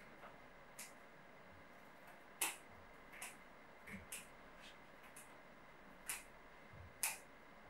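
Small scissors snipping through St John's wort stems. There are about seven short, sharp snips, spaced irregularly.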